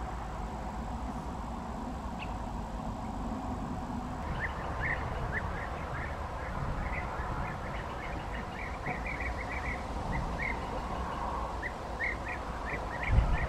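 European bee-eaters calling: short, rolling calls repeated in quick runs, starting about four seconds in, over a steady low rumble. A low thump comes near the end.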